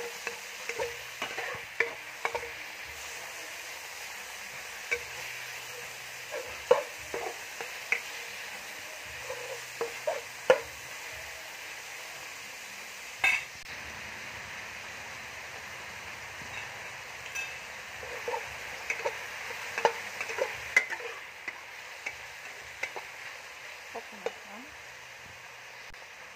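Minced pork and garlic sizzling steadily in a hot wok, with scattered scrapes and taps of a metal ladle against the pan.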